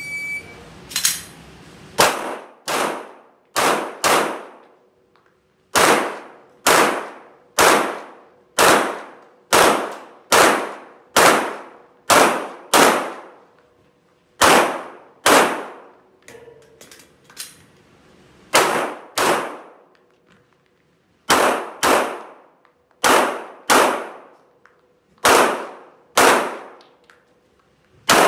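A shot timer's short start beep, then a Glock 17 Gen 5 9mm pistol fired some thirty times, mostly in quick pairs about half a second apart, with brief pauses between strings as the shooter moves and changes targets.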